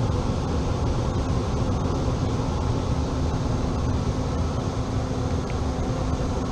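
HVAC unit running: a steady fan rush with a constant low hum.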